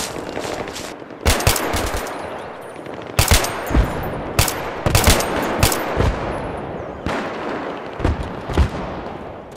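Automatic rifle fire in several short bursts, with a dense echo trailing between them.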